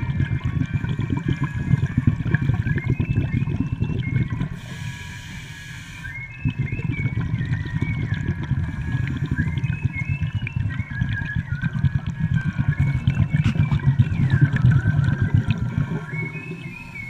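Underwater breathing on a scuba regulator: a steady bubbling rumble of exhaled air, broken about five seconds in by a hissing inhalation of about a second and a half before the bubbling resumes.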